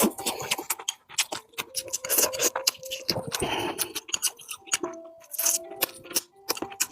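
Close-miked eating of spicy pork and rice: wet chewing, lip smacks and mouth clicks in quick succession, with scrapes.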